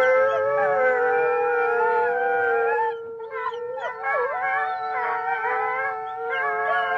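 A pack of wolves howling in chorus, several long wavering howls overlapping at different pitches. Partway through the chorus thins and short rising and falling yips break in before the long howls swell again.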